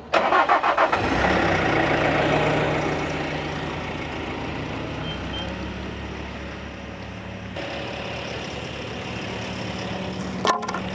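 Bobcat T450 skid steer's diesel engine starting, running loudest for the first few seconds, then settling to a steady idle as it warms up. A sharp click comes near the end.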